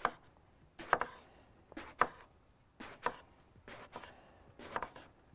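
A chef's knife slicing a purple eggplant into rounds. Each cut ends in a sharp knock on the wooden cutting board, about six strokes at roughly one a second.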